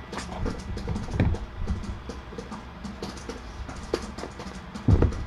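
Irregular light clicks and taps, several a second, like typing, with a dull thump about a second in and a louder thump near the end.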